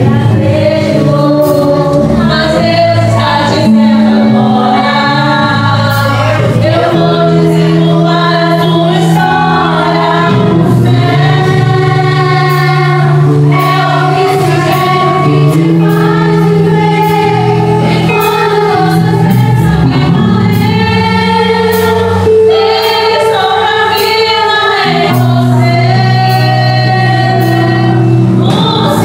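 A woman singing a gospel hymn into a microphone over sustained instrumental accompaniment, the melody moving over long held bass notes that change every few seconds.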